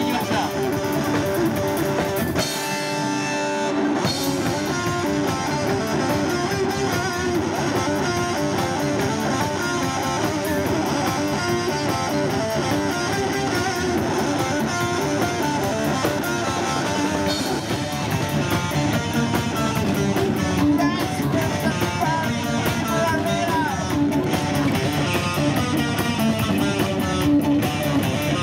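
Rock band playing live with electric guitars at full volume. About two and a half seconds in, the bass end drops out for a moment, then the full band comes back in.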